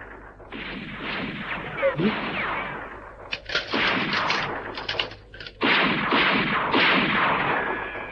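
Animated-battle sound effect of rapid gunfire in long bursts, with short breaks about three and a half and five and a half seconds in.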